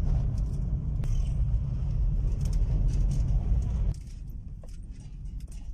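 Low rumble of a car driving on a rough dirt road, heard inside the cabin. About four seconds in it drops abruptly to a quieter background with a few faint clicks.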